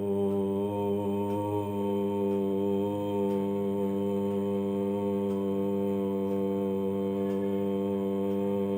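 A single voice chanting 'Om' as one long note held at a steady low pitch.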